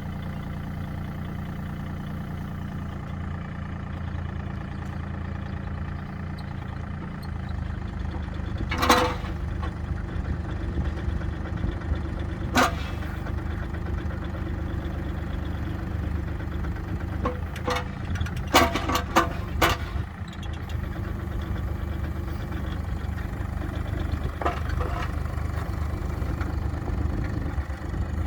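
Komatsu PC30MR-3 mini excavator's diesel engine running steadily at idle, with several sharp knocks or clanks: one about nine seconds in, one near thirteen, a cluster of four or five around eighteen to twenty seconds, and one near twenty-five.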